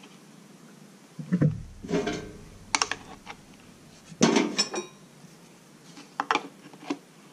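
Metal tools clinking and knocking on a workbench as a wrench is picked up and brought to a nut: a handful of separate knocks, the loudest about a second in and about four seconds in with a short metallic ring, then a few lighter clicks.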